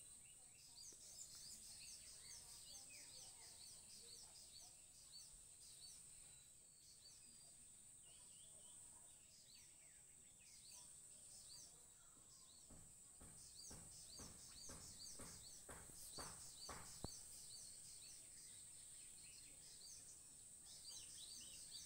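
Faint bird chirping, many quick short chirps in runs, over a steady high hiss. A few dull knocks come about two-thirds of the way through.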